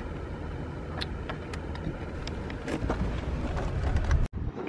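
Steady low rumble of road and engine noise inside a moving taxi's cabin, with a few faint clicks. It cuts off suddenly near the end.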